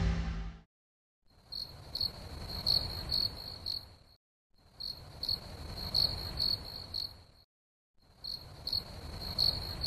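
Crickets chirping over a low hiss, in three identical stretches of about three seconds each separated by short silent gaps: a looped cricket sound effect. The tail of the music fades out in the first half second.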